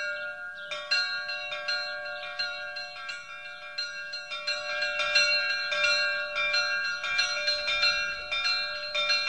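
Bells struck in quick succession, about two to three strikes a second, each tone ringing on and overlapping the next.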